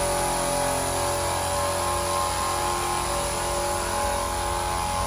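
Stanley 50-litre silent-motor air compressor running steadily, a continuous motor hum with several steady tones.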